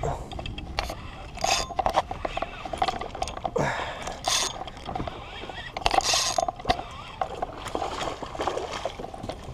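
Spinning reel being cranked to bring in a hooked redfish, its gears clicking quickly, with a few splashes from the fish at the surface.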